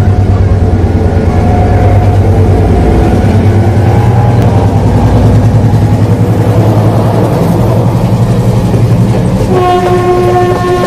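Diesel locomotive passing close by, its engine giving a loud low rumble, followed by passenger coaches. A train horn sounds one steady blast about nine and a half seconds in.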